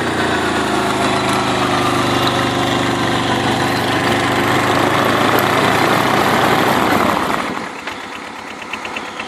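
Arctic Cat diesel quad's engine running steadily. About seven seconds in, the sound drops off and becomes quieter, with a lighter regular ticking.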